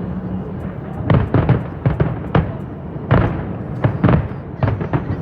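New Year fireworks display: aerial shells bursting in an irregular series of about a dozen sharp bangs, each with a short rumbling tail, over a continuous crackle and rumble.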